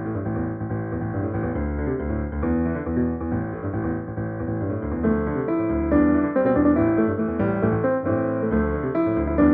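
Piano four-hands arrangement played on a Roland FA-08 keyboard's piano sound: a melody over chords and bass notes, growing louder and brighter about six seconds in.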